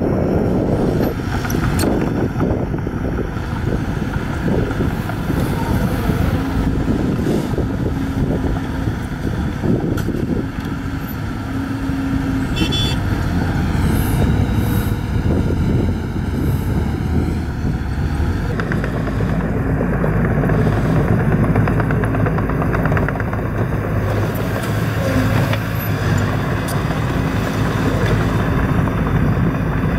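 Small Mitsubishi crawler bulldozer's diesel engine running steadily as it works the dirt, its engine note changing a little past halfway.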